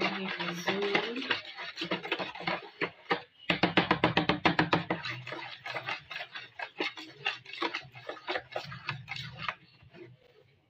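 Wet squelching and slapping as a hand squeezes and mixes mashed pumpkin with water in a plastic bowl: a fast, irregular run of squishes that grows denser about three and a half seconds in and thins out near the end.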